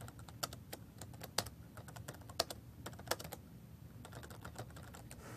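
Faint typing on a computer keyboard: irregular keystrokes a few a second, with a short pause a little past halfway.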